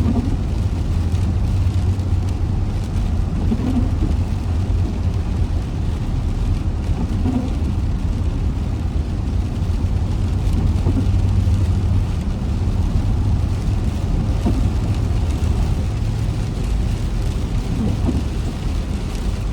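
Steady low rumble of a car driving on a wet road, with rain falling as an even hiss and scattered faint drop ticks.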